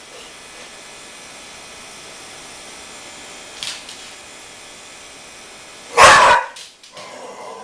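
American pit bull terrier giving one loud, short bark about six seconds in, followed by a quieter sound from the dog near the end.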